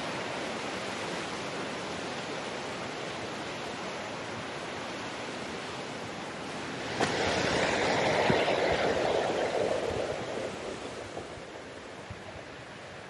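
Creek water rushing steadily. About seven seconds in, a louder rush comes in suddenly and dies away over a few seconds.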